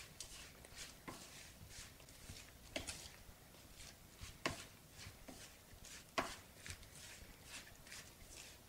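A spoon stirring tiny fish with ground roasted rice in a plastic bowl: soft scraping and rustling of the mix, with sharper taps of the spoon on the bowl, the loudest about four and a half and six seconds in.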